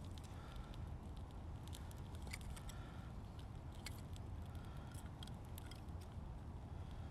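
Dry split kindling sticks clicking and tapping against each other as they are stacked by hand over a small fire, with scattered light crackles.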